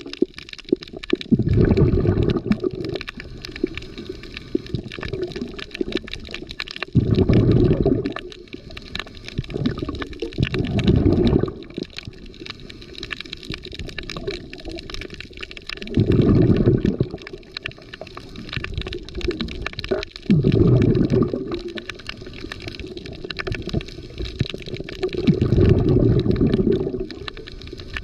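Underwater scuba exhalation bubbles from a diver's regulator: a low bubbling gurgle about every 4 to 5 seconds, six times, each lasting a second or so, with a faint steady crackle in between.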